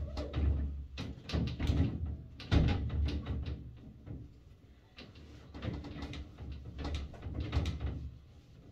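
Cloth rubbing and squeaking on the glass panels of a shower enclosure, with the sliding panels knocking and rattling in their frame in irregular strokes.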